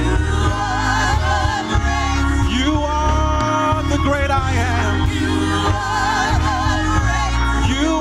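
Gospel worship music: a praise team singing with vibrato over a band with a heavy, steady bass line.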